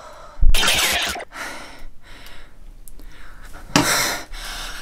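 A woman's sharp, frightened breaths: a loud gasp about half a second in, quieter breathing, then another short gasp near the end.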